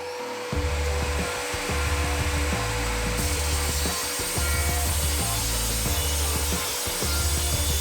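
Evolution R255SMS sliding mitre saw running with a diamond blade and cutting into masonry, a steady motor whine under a rasping cutting hiss that grows about half a second in and again around three seconds in. Background music with a pulsing bass plays over it.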